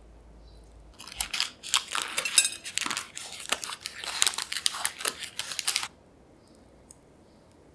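Pleated paper muffin cup crinkling and tearing as it is peeled off a baked chocolate muffin: a dense crackle of rustles and small snaps. It starts about a second in and stops abruptly about five seconds later.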